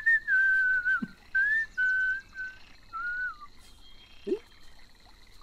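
A man whistling a string of short held and wavering notes for about three and a half seconds, then stopping: the whistle used in China to prompt a small child to pee.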